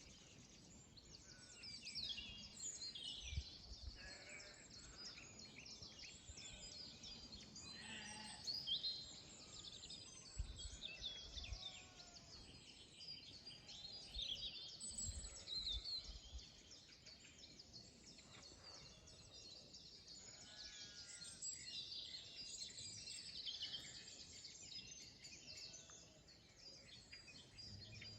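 Dawn chorus: many songbirds singing and chirping over one another, with faint sheep bleating from time to time. A few soft low thuds sound now and then.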